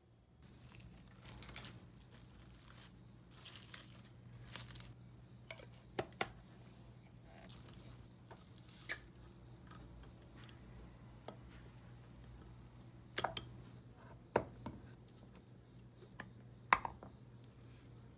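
Food being handled at a kitchen counter: a few rustling, scraping noises in the first seconds, then scattered sharp knocks and clicks, the loudest near the end, over a faint steady high whine.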